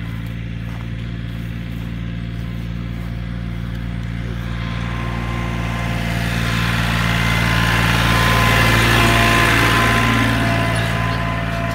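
Farm tractor engine running steadily as it pulls a hay-ride wagon, heard from on board. A rush of noise swells about six seconds in and fades again near the end.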